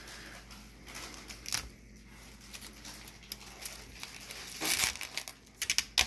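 Plastic protective film being peeled off a new dishwasher's stainless steel panel, crinkling and crackling as it comes away and is handled. There is a louder stretch near the end with a quick run of sharp crackles.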